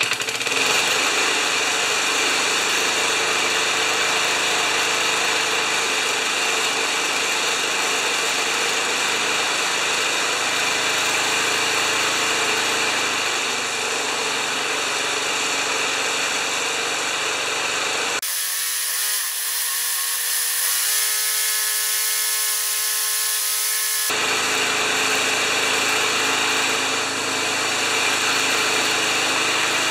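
Old Tecumseh single-cylinder four-stroke lawn mower engine running steadily. For a stretch of about six seconds past the middle, the deep running sound drops out and leaves a thin high hiss before it returns.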